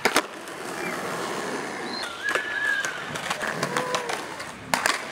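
Skateboard flip tricks on concrete: a sharp clack of the board at the start, a strong pair of clacks near the end, and lighter board and wheel knocks in between. A brief wavering whistle-like chirp sounds midway.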